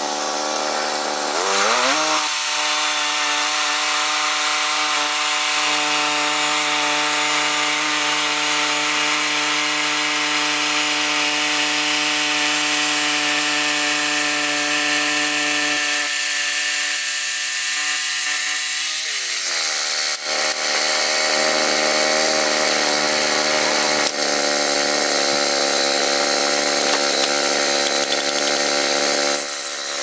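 Woodland Mills HM122 portable band sawmill cutting a yellow pine log: its engine revs up about two seconds in and runs steadily under load as the band blade saws through the wood. The engine pitch drops once about two-thirds of the way through, then it keeps running.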